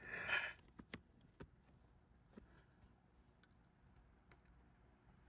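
Faint, scattered metallic clicks as the small internal parts of a Craftsman quarter-inch drive Boxhead ratchet are handled and fitted back into the head, after a brief rustle at the start.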